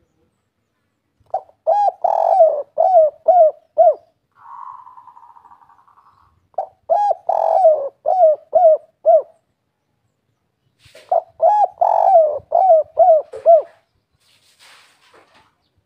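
Spotted dove singing its 'kuk 3' song: three coo phrases, each a quick run of about seven notes, a few seconds apart. Between the first two phrases there is a softer buzzing sound for about two seconds.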